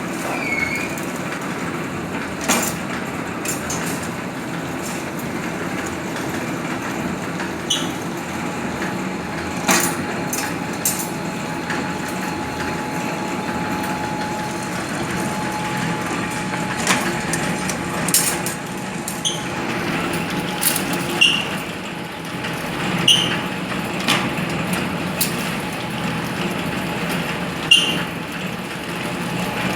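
CNC ring-making machine forming 8 mm wire, running with a steady mechanical hum. Sharp metallic clinks ring out at irregular intervals every few seconds.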